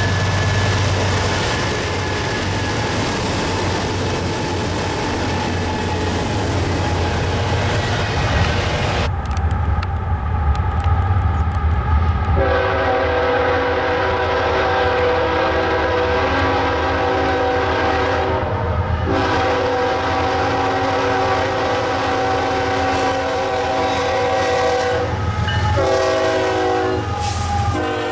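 Freight train passing close by, with locomotive diesel engines droning and wheels rumbling on the rails. After a sudden change, a BNSF locomotive's multi-chime air horn sounds as the train approaches: two long blasts, a shorter one, and another starting near the end, the grade-crossing signal.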